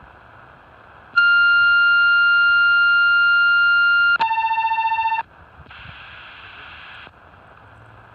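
Tecsun PL-660 shortwave receiver on the 2130 kHz railway station radio channel: over steady receiver hiss, a loud steady electronic tone sounds for about three seconds, then switches to a lower, rapidly pulsing tone for about a second. A short burst of noise follows, as a transmission carrier keys on and off.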